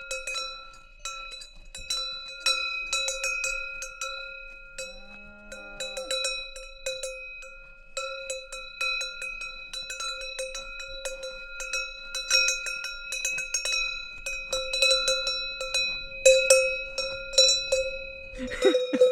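A cowbell on a moving cow clanking irregularly, each knock leaving a sustained metallic ring.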